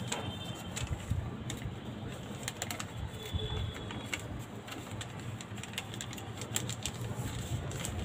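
Sheet of origami paper handled and folded by hand, rustling and crackling in short irregular clicks as the creases are pressed down. A steady low hum runs beneath.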